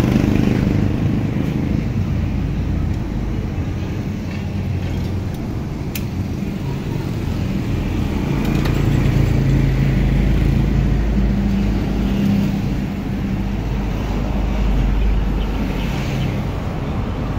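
Steady low rumble of a motor vehicle engine running somewhere in the surroundings, its pitch rising and falling slowly. A single sharp tap comes about six seconds in.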